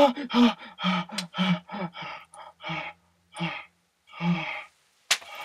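A person panting and gasping for breath: short breathy gasps in quick succession, coming further apart toward the end. A single sharp click sounds near the end.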